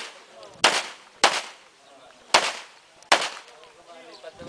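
Four pistol shots fired one at a time, about half a second to a second apart, each a sharp crack with a short echo.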